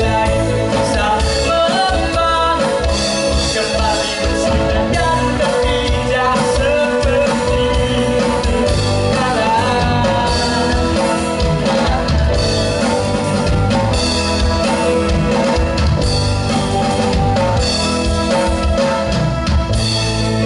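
Live rock band playing a song: drum kit, guitar and bass under a singing voice, loud and steady throughout.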